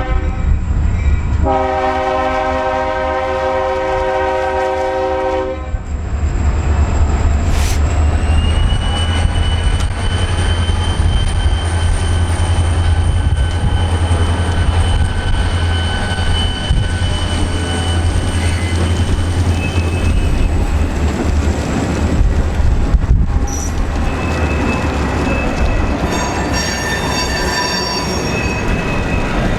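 Diesel locomotive horn sounding a short blast and then a longer chord of about four seconds, over the locomotive's deep engine rumble as the train rolls by. Flanges then squeal in a long, high, steady screech, with railcar clickety-clack, and the squeal returns near the end.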